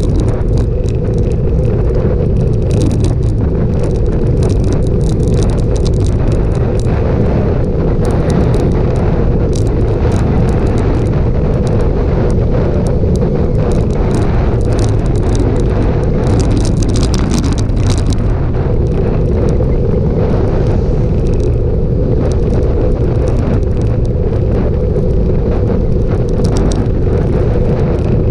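Wind rushing over the microphone of a bike-mounted camera and road noise from a road bike rolling on rough asphalt, steady throughout, with scattered clicks and rattles from bumps in the road.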